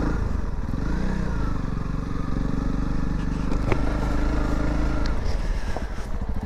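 Honda CRF300 Rally's single-cylinder engine running at low, steady revs while being ridden, with a brief rise and fall in revs about a second in. A single sharp knock a little after halfway.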